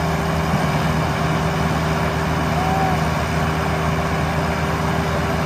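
Diesel engines of two tractors, one a Sonalika, idling steadily while hitched for a tug-of-war.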